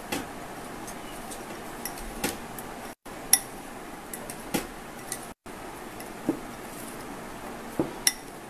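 A spoon stirring a dry powdery mix in a glass bowl, with scattered sharp clinks of the spoon against the glass over a steady hiss. The sound cuts out completely twice, very briefly.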